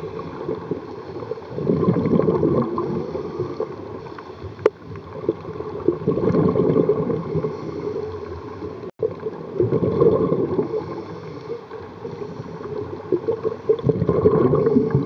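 Scuba diver's regulator breathing underwater: bursts of exhaled bubbles gurgling about every four seconds, with quieter spells between. One sharp click about five seconds in.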